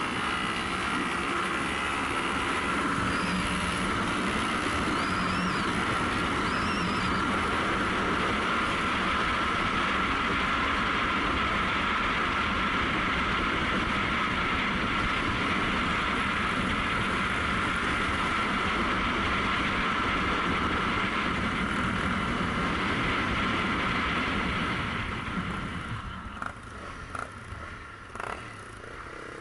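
Honda CRF250L single-cylinder four-stroke engine at steady cruising speed on asphalt, mixed with rushing wind on an action camera's microphone. Near the end it turns quieter as the bike slows, with a few short clicks.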